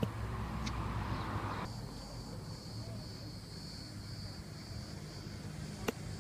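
Low steady rumble of a moving vehicle, with a steady high-pitched insect buzz setting in about two seconds in. A sharp click near the end.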